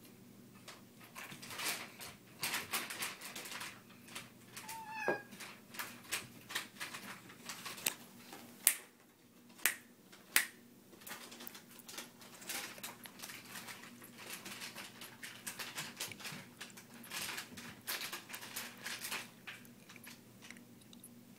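Kittens batting and chasing crinkly aluminium foil balls over carpet: scattered rustles and light clicks throughout. A single short kitten meow about five seconds in, and a few sharp clicks around nine to ten seconds in are the loudest sounds.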